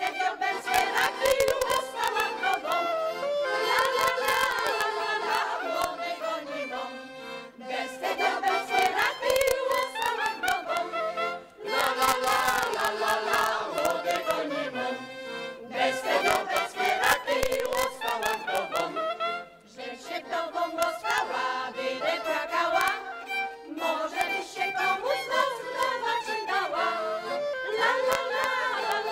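Mixed choir of men and women singing a Polish folk song, accompanied by fiddle and accordion.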